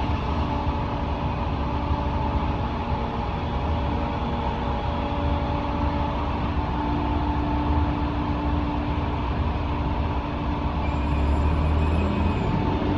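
A large engine running steadily at a constant speed, with a heavy low drone and a few held tones over it.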